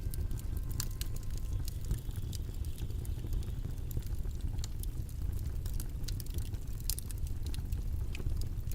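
Steady low rumbling noise with many small, irregular sharp clicks and crackles scattered through it.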